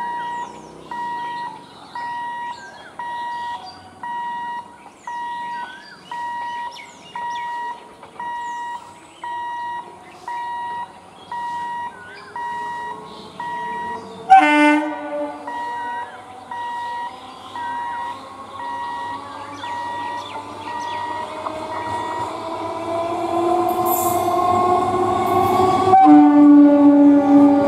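An electric multiple unit (EMU) local train: its horn gives one short, loud blast about halfway through, then a rising whine builds as it nears, and near the end the sound turns abruptly to a loud, steady tone as a train passes close. Until then an electronic beeper sounds steadily, about one two-tone beep a second, with birds chirping.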